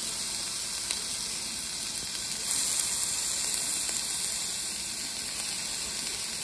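Sliced vegetables and a fried egg sizzling in a nonstick frying pan: a steady high hiss that swells a little for a second or so near the middle.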